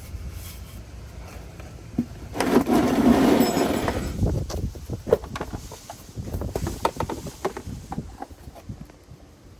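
Handling noise from oil-change work: a loud rustling rush about two seconds in lasting a second or two, then scattered clicks and knocks of tools or parts being handled.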